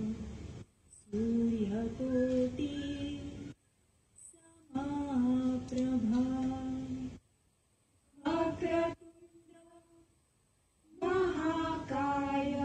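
Female voices singing a slow devotional arti unaccompanied, in phrases separated by short pauses of a second or two.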